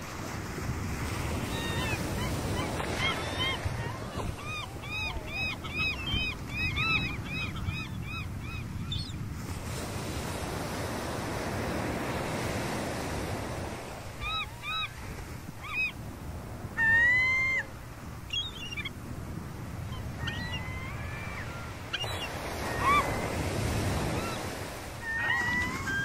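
Gulls calling over steady surf. A quick run of short, repeated calls comes about five to nine seconds in, then scattered single calls follow, the loudest about two-thirds of the way through.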